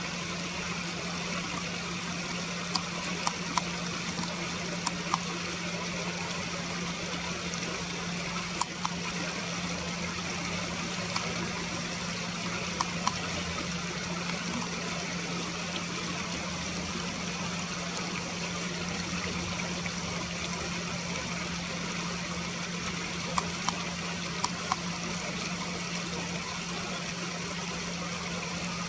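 River water running steadily, with a low steady hum under it and a dozen or so short, sharp ticks scattered through it.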